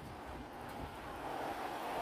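Street traffic noise: a vehicle passing on the road, its sound growing louder near the end.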